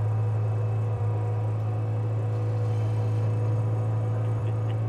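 Skid steer loader's engine running steadily at a constant speed, a low, even drone.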